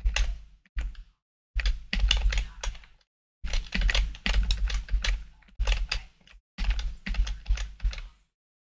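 Rapid typing on a computer keyboard in several short bursts of fast clicks, each with a low thud from the desk beneath, cutting off abruptly between bursts.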